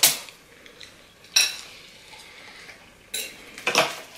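Metal fork clinking and scraping against a foil tray of cheese-sauce-covered fries: four short, sharp clicks spread over a few seconds.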